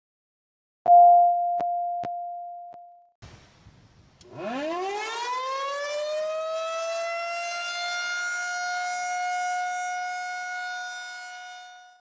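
A 700 Hz sine test tone sounds for about two seconds, starting with a click and fading away. Then a Federal Signal single-tone outdoor warning siren winds up, its pitch rising over about three seconds to a steady high wail that holds and fades near the end.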